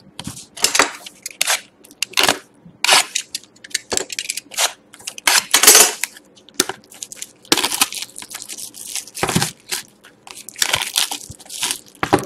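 Plastic shrink-wrap crinkling and tearing as it is stripped off small cardboard trading-card boxes, in a run of short, irregular rustles, with the boxes being handled.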